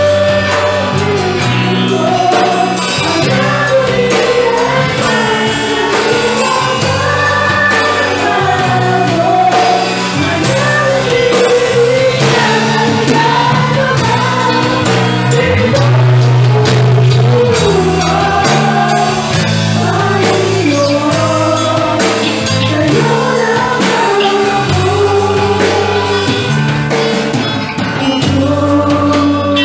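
Praise and worship song: a group of voices singing a melody together over instrumental accompaniment with a held, stepping bass line.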